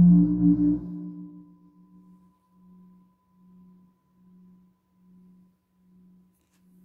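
Didgeridoo drone that stops about a second in. A faint low tone rings on after it, pulsing slightly faster than once a second and slowly fading.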